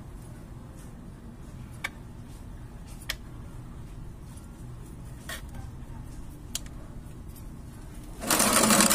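A few faint sharp ticks, then near the end a loud noisy scrape of under a second as a kitchen knife is pushed down into potting soil in a cut plastic water bottle.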